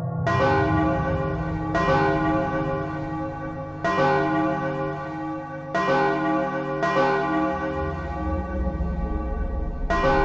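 Deep bell-like "bong" struck six times at uneven intervals, each stroke ringing on into the next over a low hum: the Taco Bell bong meme sound effect.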